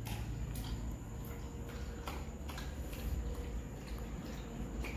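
German Shepherd eating curd and roti from a stainless steel bowl: irregular, soft wet lapping and chewing smacks, roughly one or two a second.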